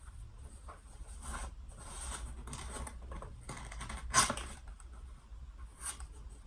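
Funko Pop cardboard box being handled and opened by hand: irregular rustling, scraping and tearing, with the sharpest, loudest tear or snap about four seconds in.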